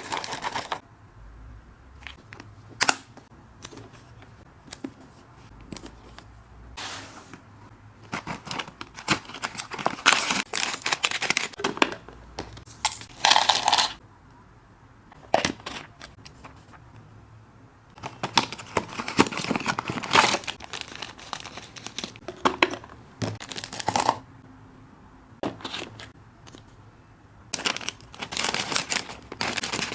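Plastic snack packaging crinkling and tearing, with small clicks and rattles of dry snacks and containers, in bursts with quieter gaps between.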